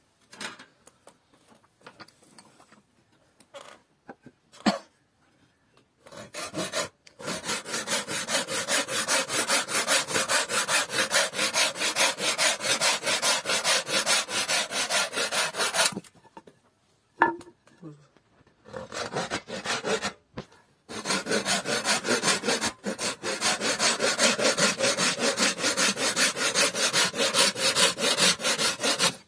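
Hand saw cutting into a wooden board in fast, steady back-and-forth strokes: a test cut with the freshly sharpened saw. A few scattered knocks from handling come first, and the sawing runs in two long bouts with a pause of about three seconds between them.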